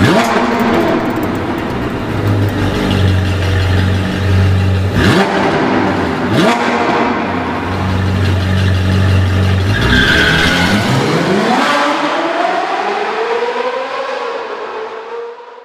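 Car engine running and revving, its pitch sweeping up and down several times, then fading out near the end.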